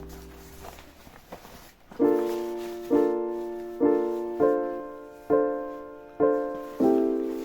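Background music: keyboard chords struck in a steady rhythm about once a second, starting about two seconds in after a quiet, fading passage.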